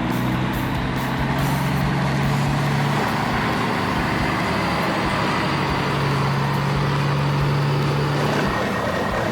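Heavy construction-vehicle engine running steadily, with a low hum that drops away about three seconds in and comes back a few seconds later.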